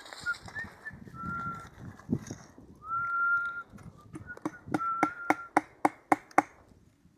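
Whistling: a few short, steady held notes at about the same pitch. In the second half comes a run of about nine sharp taps, three or four a second, which stops about a second before the end.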